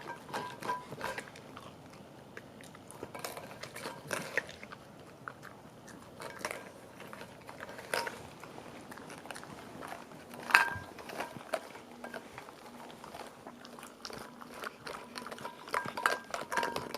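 A dog chewing and crunching treats, with scattered sharp clicks and a louder knock about ten and a half seconds in.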